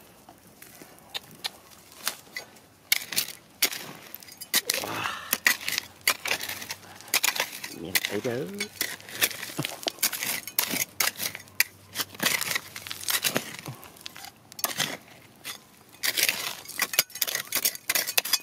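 Small hand digging tool scraping and striking dry, stony soil: irregular scrapes, clinks of metal on rock and the crunch of loose gravel and dirt being pulled away.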